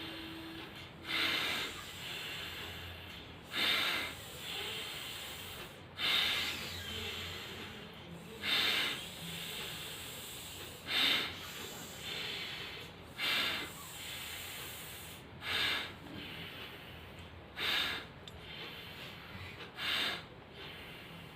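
Anulom vilom alternate-nostril breathing: nine short, forceful breaths through the nose about every two and a half seconds, each followed by a longer, softer breath.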